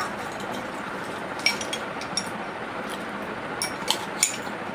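Metal spoon clinking against ice cubes in a drinking glass: about six light, separate clinks, over a steady background hiss.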